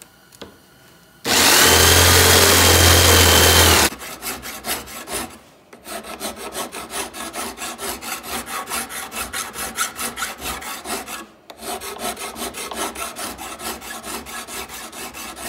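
A jigsaw cuts sheet steel for about two and a half seconds near the start, then stops suddenly. After a short break, a hand tool is worked back and forth on the steel in a steady run of strokes, pausing briefly twice.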